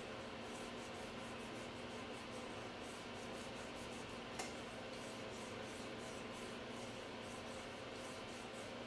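Nail file rasping on fingernails in quick, faint, scratchy strokes, about three or four a second, with one sharp click about four and a half seconds in.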